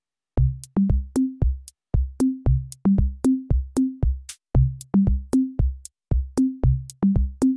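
Electronic background music with a drum-machine beat: deep kick thumps, short low bass notes stepping between a few pitches, and crisp high ticks. It starts abruptly about a third of a second in, out of total silence.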